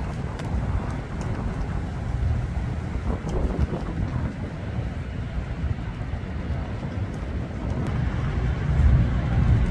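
Low, steady rumble of road traffic mixed with wind buffeting the microphone, swelling louder near the end.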